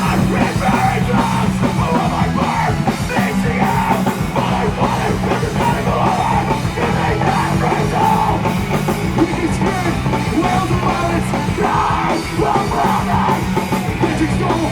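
Live heavy rock band playing loud and dense: distorted electric guitars, bass and a full drum kit, with some yelled vocals, as a song kicks in.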